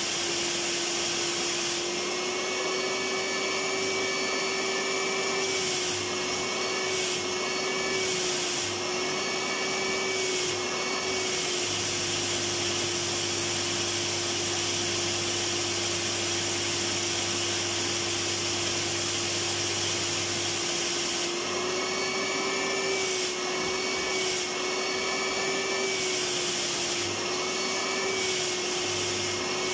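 Electric vacuum cleaner running without a break: a steady motor whine over rushing air, its pitch wavering slightly.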